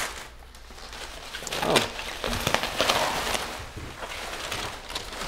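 Packaging rustling, crinkling and scraping as a cardboard mystery box is opened and its contents handled, in irregular bursts.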